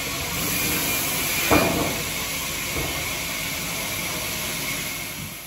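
Steady noisy sawmill yard ambience with a single sharp wooden knock about a second and a half in, fading out at the end.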